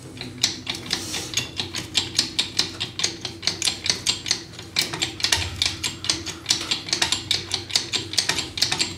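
Small hydraulic jack being pumped by hand to lift and support a boat's propeller shaft: a rapid run of sharp metallic clicks, about five a second.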